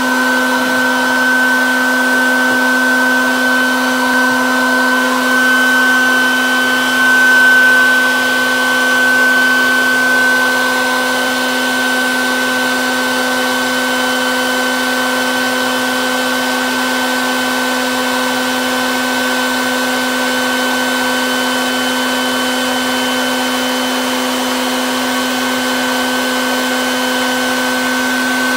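Colorado Bee Vac bee vacuum running steadily, its motor giving a constant hum and whine while its hose draws honeybees off the comb.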